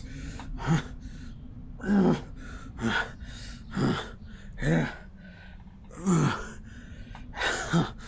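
A man panting hard, with one heavy voiced breath about every second.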